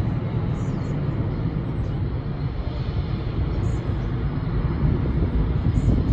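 Jet airliner engines rumbling steadily, a little louder near the end.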